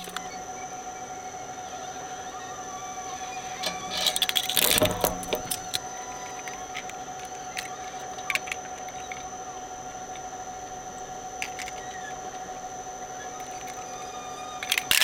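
Twin-shaft toy shredder running empty, a steady mechanical whine from its drive with the rotors turning. A short burst of clicks and rattles comes about four to five seconds in, with a few light clicks later.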